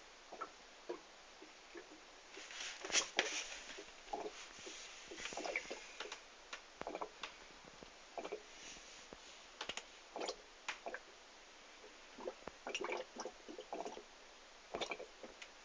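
Actively fermenting homebrew beer pushing carbon dioxide out through the fermenters' airlocks and blow-off tube, in irregular bubbling pops and gurgles.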